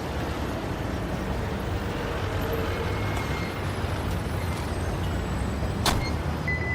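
Steady road-vehicle noise: a low engine rumble under a hiss, with one sharp click about six seconds in.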